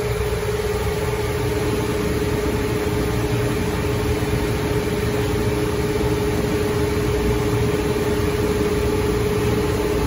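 Liebert (Vertiv) HVAC unit running with its compressors on, giving a steady, even machine noise with a constant humming tone.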